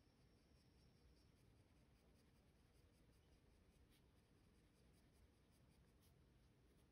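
Faint scratching of a Prismacolor Premier colored pencil shading on paper, in many short, uneven strokes.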